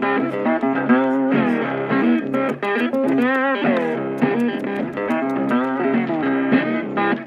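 Background music led by guitar, a continuous run of plucked notes with a wavering, bent note about three and a half seconds in.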